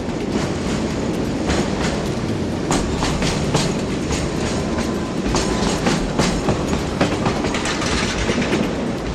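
Train rolling along the track: a steady rumble with irregular clacks of the wheels over the rails.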